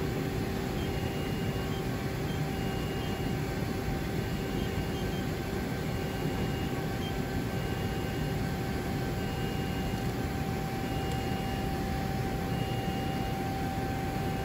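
Steady mechanical hum of a Mori Seiki SL603C CNC turning center powered up while its turret is jogged slowly along the Z and X axes, with a steady mid-pitched tone and a faint higher tone that comes and goes about once a second.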